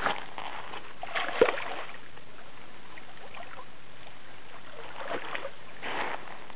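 Water splashing in short flurries over a steady hiss, with a sharp knock about a second and a half in.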